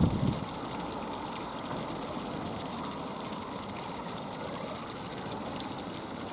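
Steady rushing of running water, with one brief low thump right at the start.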